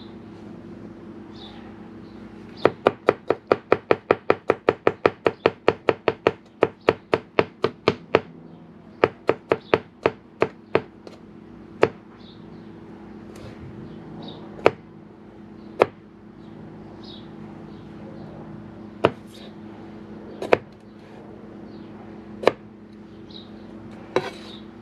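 Knife chopping garlic on a cutting board: a fast run of even strikes at about four or five a second, then a slower run, then single cuts every second or two, over a steady low hum.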